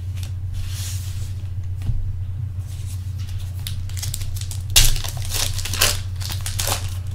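A trading-card pack wrapper being torn open and crinkled by hand, with irregular sharp crackles that are loudest about five and six seconds in, over a steady low hum.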